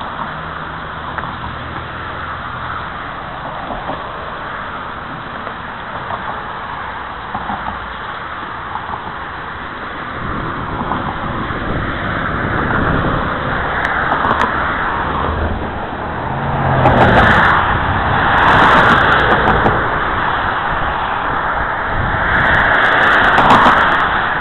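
Road traffic passing: cars going by one after another, each swelling and fading, three loudest in the second half, over a steady rush of wind and rolling noise from a camera riding on a mountain bike.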